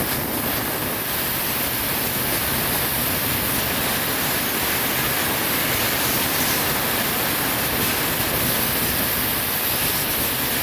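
Compressed air blasting from an air-hose blow gun: one long, loud, steady hiss, held without a break.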